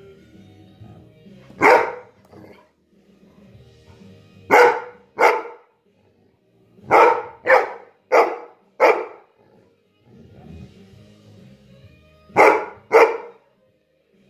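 Yellow Labrador retriever barking at a lemon slice held out to it, demanding it. Nine loud single barks come in short clusters: one, then two, then four, then two, about half a second apart within each cluster.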